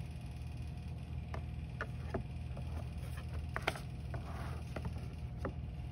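Baseball cards being handled by gloved hands: scattered faint clicks and ticks over a steady low hum.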